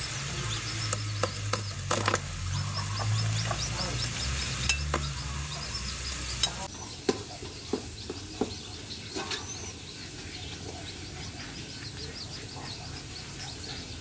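Metal spoon knocking and scraping against a metal pot and wok while cooking, over a steady sizzling hiss; the knocks come irregularly through the first two-thirds.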